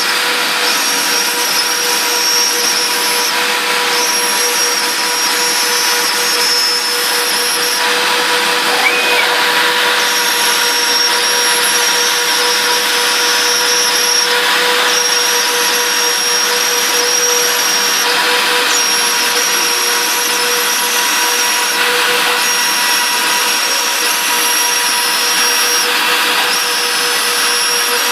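Twin-spindle CNC router, its two routers spinning at 30,000 rpm with 1.5 mm cutters, milling through two stacked sheets of 3 mm poplar plywood: a loud, steady whine, its highest tones dropping out briefly every few seconds.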